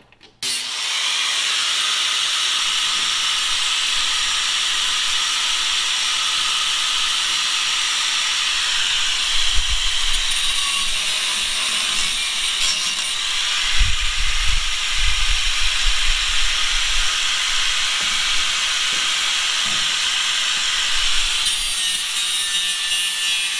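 Corded angle grinder with a cut-off wheel running steadily as it cuts through an exhaust pipe, starting about half a second in. A few dull low knocks come partway through.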